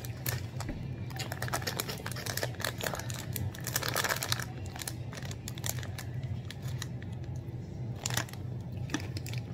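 Plastic snack wrapper being handled and opened: irregular crinkling, rustling and small clicks, thickest about three to four seconds in, over a low steady hum.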